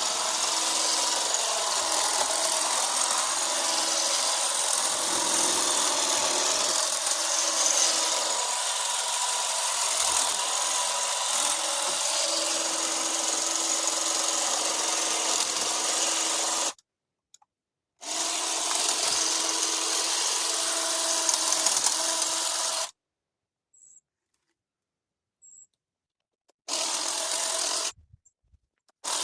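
Hedge trimmer running steadily while cutting overgrowth, its motor holding a constant pitch; it cuts off abruptly about two-thirds through, restarts, then stops for a few seconds and runs again briefly near the end.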